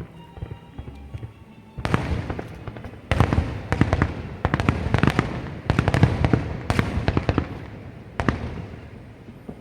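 Aerial fireworks exploding in a rapid barrage of sharp bangs and crackling reports, starting about two seconds in, densest in the middle and thinning out near the end.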